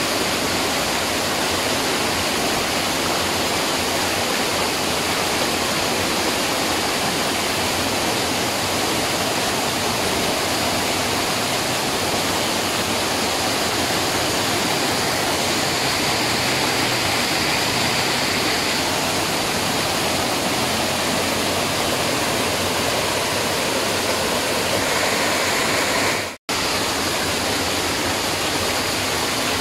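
Waterfall: a steady, unbroken rush of falling water, cutting out for an instant near the end.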